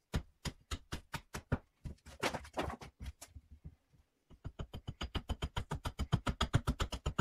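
Axe chopping a birch spoon blank on a wooden chopping block: a rapid run of sharp chops. It pauses for about a second around three seconds in, then resumes faster and very evenly.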